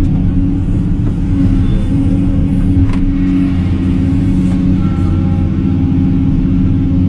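Excavator's diesel engine running steadily under work, with a short knock about three seconds in.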